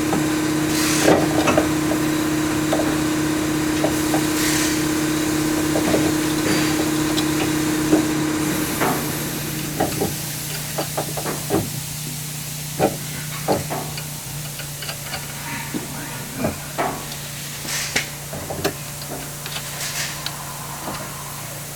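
Scattered light metal knocks and clicks as a complete strut assembly is worked up into the wheel well and lined up with its top mounting holes, over a steady hum whose higher part stops about eight seconds in.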